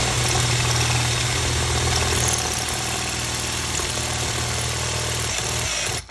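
Power drill running steadily, its bit boring into the brass plug of an Ultion 3-star euro cylinder along the shear line. The drill stops briefly near the end.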